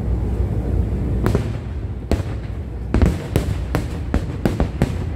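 Aerial fireworks shells bursting: a string of about ten sharp bangs, coming faster in the second half, over a steady low rumble.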